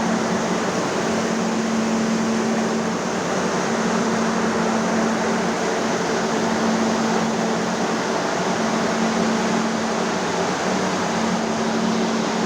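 Corn dryer running: a steady rush of air from its fan with a constant hum.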